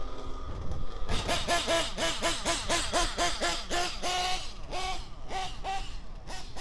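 Background music: a bouncy melody of short nasal notes, about four a second, then a few longer held notes.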